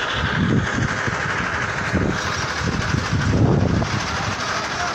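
Farm tractor engine running steadily, with a few louder low rumbles.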